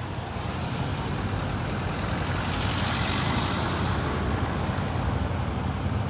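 Cars passing close by on a street, their tyre and engine noise swelling gently to a peak about halfway through and easing off, over a steady low engine hum.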